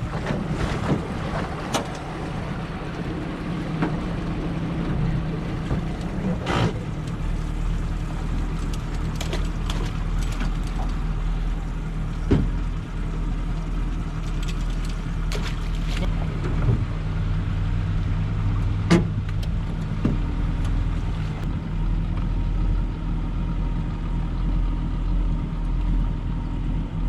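A boat's motor running steadily, with a deeper low hum from about seven seconds in, and scattered sharp knocks and clicks.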